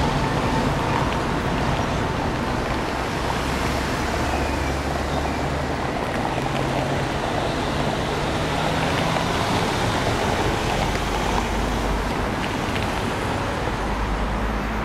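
Street traffic on a cobbled road: a tram rolling past, then cars driving over the cobblestones, a steady wash of tyre noise with engine hum.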